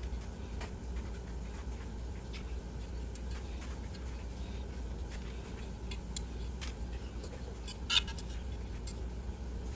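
Faint scattered clicks and light scratching from small metal parts being handled while a new thermocouple is fitted to a water heater burner, with one sharper click about eight seconds in. A steady low hum lies underneath.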